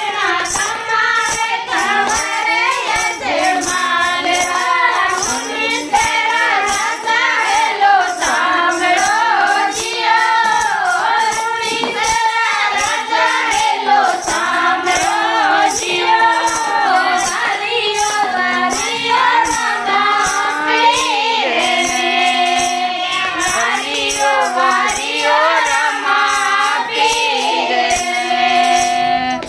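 Women singing a Marwari devotional bhajan in unaccompanied folk style, keeping a steady beat with hand claps.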